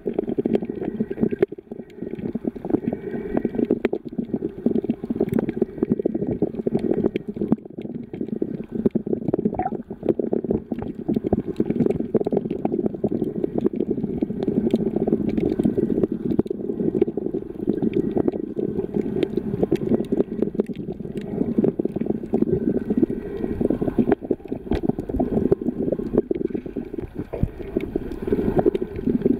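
Muffled underwater sound picked up by a submerged camera: a steady low rumble of moving water with dense crackling clicks throughout.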